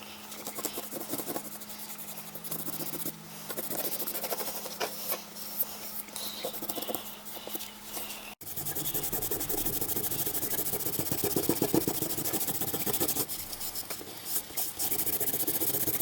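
Repeated hand rubbing or abrasive scrubbing strokes, over a faint steady hum in the first half. After a sudden cut about eight seconds in, the strokes are denser and louder.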